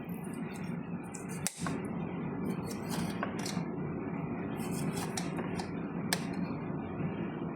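Light kitchen handling sounds, scattered small clicks and clinks of dishes and utensils, over a steady background hum.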